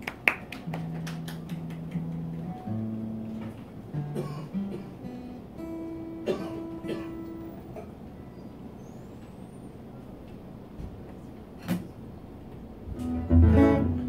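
Acoustic guitar played as a few single plucked notes and short phrases, some notes repeated, quieter for a few seconds past the middle.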